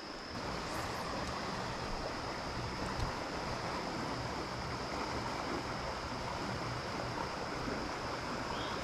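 Steady rush of a shallow river's current flowing around the wader, an even wash of water noise with no breaks, and a faint steady high tone above it.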